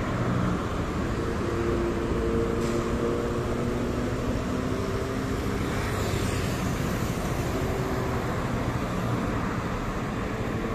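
Steady city road traffic: cars driving past on a multi-lane road, tyre noise with a faint engine hum.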